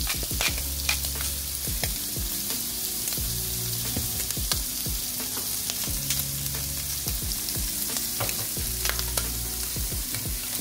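Shrimp frying in oil in a skillet: a steady sizzle with scattered crackling pops.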